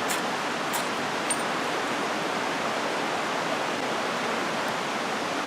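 Steady rushing of flowing creek water, with two sharp flint-and-steel strikes in the first second.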